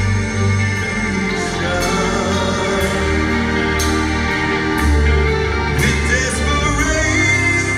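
Live progressive metal band playing: a male singer holding notes over sustained guitar and keyboard chords, bass and drums with cymbal crashes, heard from within the audience.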